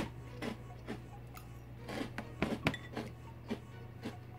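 A metal spoon clinking and scraping against a glass bowl of dry Cheerios, a handful of sharp clinks scattered through, with quiet chewing of dry cereal between them.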